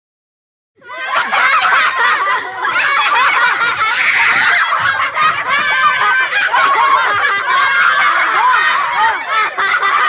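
A group of children laughing together, many high voices overlapping in a dense, continuous mass. It starts suddenly after a moment of silence, just under a second in.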